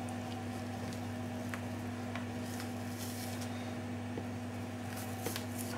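A steady low electrical hum, with faint soft squishing and a few light clicks as the fell, the thin skin over the fat of a rack of lamb, is pulled away with a cloth.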